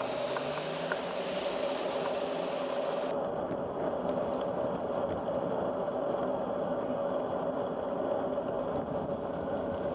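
Bicycle in motion: a steady rush of tyre and wind noise with a constant hum under it. The higher hiss softens about three seconds in.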